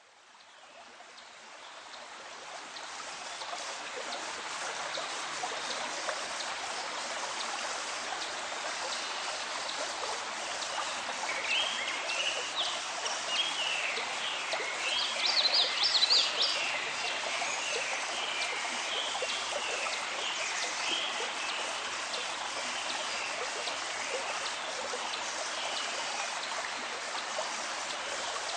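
Flowing stream, a steady rush of water that fades in from silence over the first few seconds. Birds chirp over it for several seconds around the middle.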